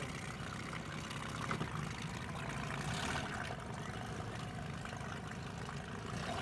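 Honda four-stroke outboard motor running at low speed as it pushes a small jon boat away, with water lapping and trickling close by.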